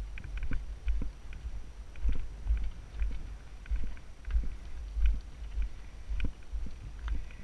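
Mountain bike riding over rocky singletrack, heard through a helmet-mounted camera: irregular low thumps as the tyres hit rocks and ledges, with sharp clicks and rattles from the bike.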